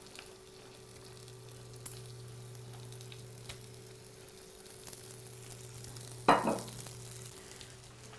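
Lamb knuckles sizzling steadily as they brown in oil in an electric frying pan, with a single sharp knock about six seconds in.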